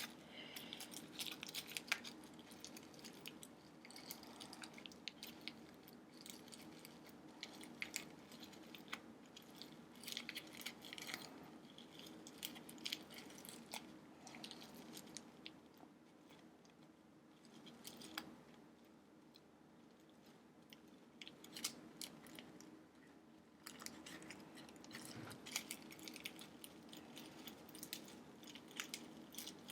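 Faint crinkling and rustling of a tied packaging bag being handled, with many small scattered crackles, as its knot is worked at.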